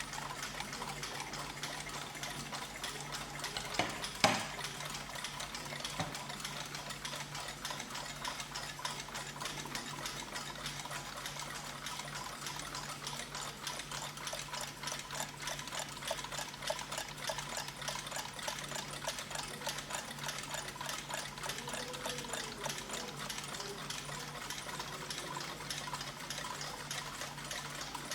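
Many mechanical clocks ticking at once, their ticks overlapping into a dense, even patter over a low steady hum. A single sharp knock sounds about four seconds in.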